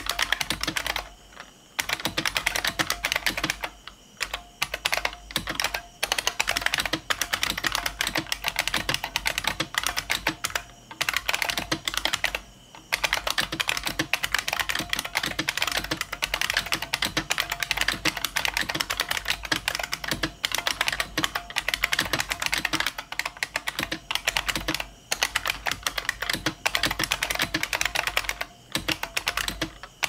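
Continuous fast typing on a bolt-modded 1992 IBM Model M Space Saving Keyboard: a dense stream of buckling-spring key clicks, broken by a few brief pauses.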